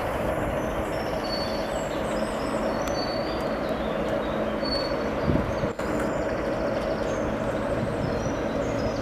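Diesel locomotive running, a steady drone, with a brief low thump about five seconds in.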